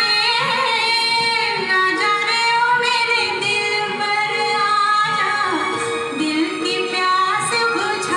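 A vinyl record playing on a Rotel turntable: a song with a woman singing over instrumental accompaniment, her voice sliding between notes.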